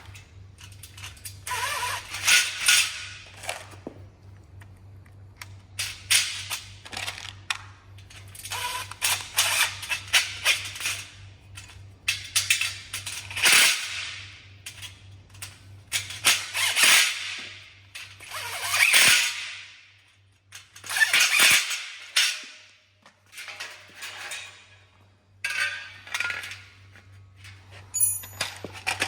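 Hard parts clattering and clicking in repeated bursts every second or two, over a low steady hum.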